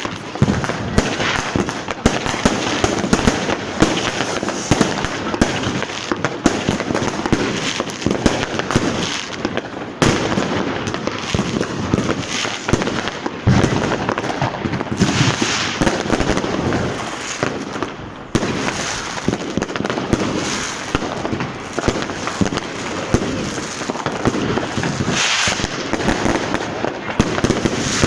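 Continuous barrage of consumer fireworks and firecrackers: dense, overlapping bangs and crackling, with brief hissing rushes about halfway through and again near the end.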